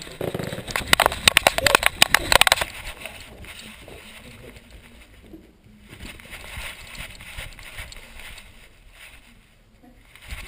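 Knocking, rattling and rubbing noise from a head-strapped GoPro camera as the dog wearing it moves about. A dense burst of rapid knocks and scrapes in the first two and a half seconds is the loudest part. It gives way to quieter, uneven rustling.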